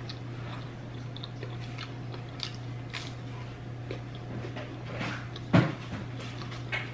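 A person chewing pizza with her mouth closed: soft, scattered mouth clicks over a low, steady hum, with one louder short thump about five and a half seconds in.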